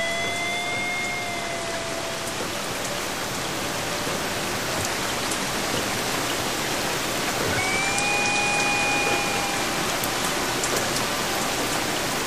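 A steady rain-like hiss with scattered fine ticks like drops, part of an experimental music track. Two long held tones sound over it, one at the start and one about eight seconds in, each lasting about two seconds.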